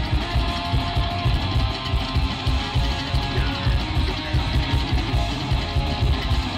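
Psychobilly band playing live: electric guitars, upright double bass and drums, with a fast, steady beat.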